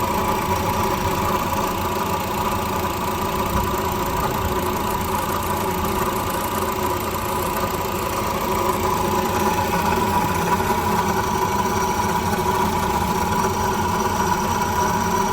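2012 Honda City engine running steadily at idle with an abnormal mechanical noise, likened to a broken bearing, that the mechanic traces to a bad water pump.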